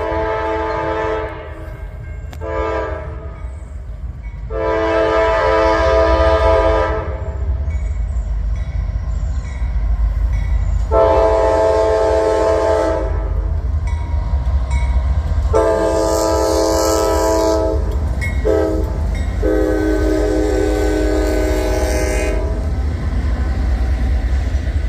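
Norfolk Southern freight locomotive's air horn blowing a series of blasts, ending in the long, long, short, long grade-crossing signal. The locomotive and rolling cars rumble steadily underneath.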